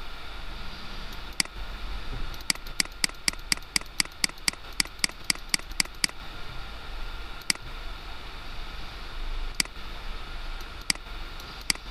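Computer mouse clicking: a quick run of clicks, about four a second, for a few seconds, then single clicks every second or two.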